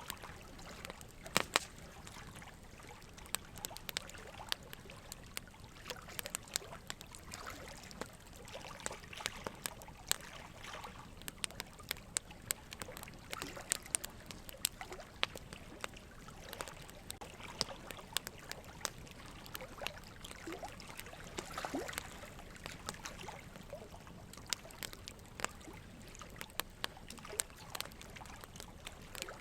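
Soft background ambience: a steady hiss with frequent, irregular small clicks and pops throughout.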